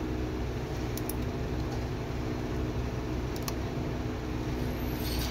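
Steady low mechanical hum, with a couple of faint clicks.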